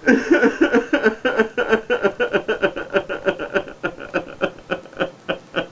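A man sobbing hard in quick, jerking bursts, about four or five a second, that slow and trail off near the end.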